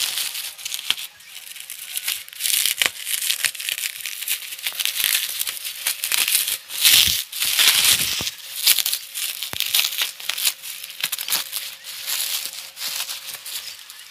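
Plastic bubble wrap around a cardboard box crinkling and rustling irregularly as it is cut open and pulled away by hand, loudest about seven seconds in.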